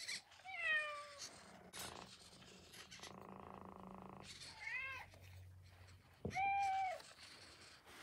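Metacat 2.0 robotic cat's speaker playing three recorded meows as it is stroked. The first falls in pitch and the last is the loudest, with a brief buzz between them about three seconds in.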